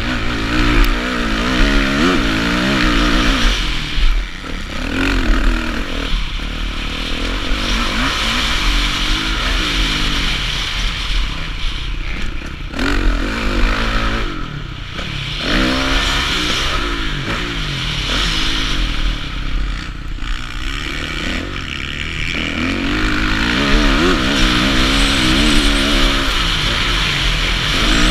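Kawasaki KX450F four-stroke single-cylinder motocross engine heard close up under hard riding, revving up and dropping back again and again as it accelerates and shifts between sections of the track.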